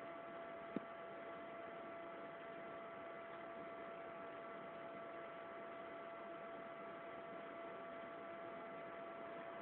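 Steady electrical hum and hiss with a few faint constant tones, broken once by a short click about a second in.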